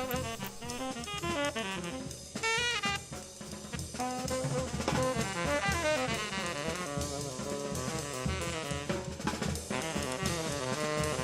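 Instrumental background music: a melody of quick, shifting notes over a steady drum beat.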